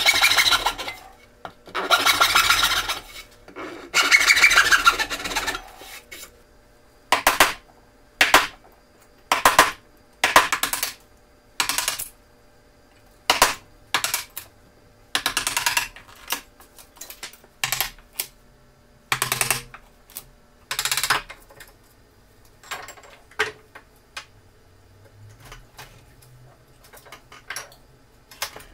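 Backsaw cutting dovetails in a pine board, with a few long rasping strokes. Then a chisel pares out the waste between the dovetails in a string of short, separate scraping cuts, which grow fainter and sparser near the end.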